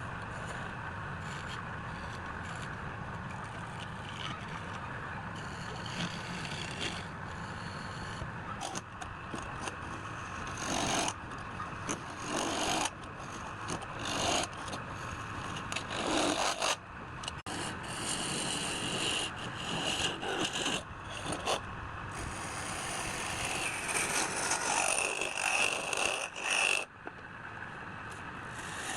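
Wood being scraped and rubbed by woodworking tools, in a series of short, abruptly changing passages, with a high whine for a few seconds near the end.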